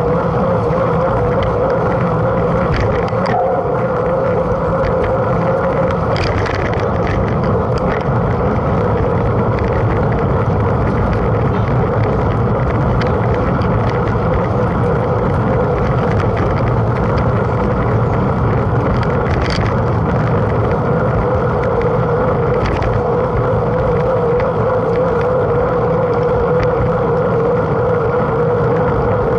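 A mountain bike being ridden: a steady rolling rush from the tyres, with wind on the microphone and a steady droning hum, plus a few faint ticks.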